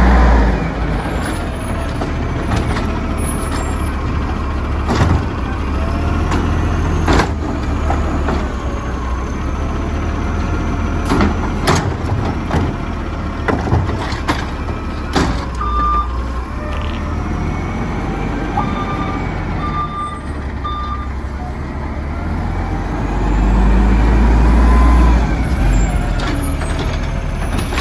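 Natural-gas-powered automated side-loader garbage truck working a curb: the engine runs steadily while the hydraulic arm grabs and dumps carts, with several sharp clanks and knocks. There is an air-brake hiss, and a series of short beeps is heard partway through. The engine rises near the end as the arm reaches out for the next cart.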